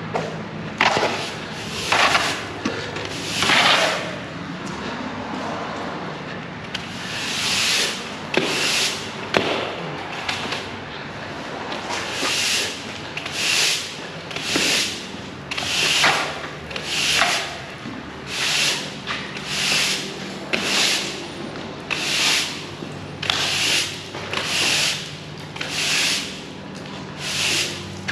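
Push broom sweeping mud and grit across a concrete wash-bay floor in regular strokes, after a few spaced strokes and a short pause, about one stroke a second. A steady low hum runs underneath.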